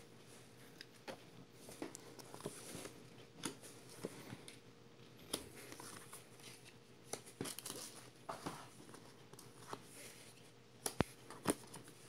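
Game cards being handled and laid down one by one on a wooden tabletop: faint slides, rustles and light taps, with a couple of sharper taps near the end.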